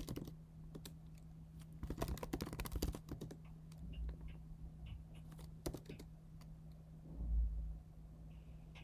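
Typing on a computer keyboard: scattered clicking keystrokes, with a dense run of them about two to three seconds in and a few lone key presses later. A single low thump comes near the end, the loudest sound, over a faint steady hum.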